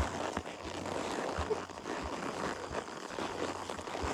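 A ridden horse walking up a trail hill: dull, uneven thuds of its footfalls over a steady rustling noise.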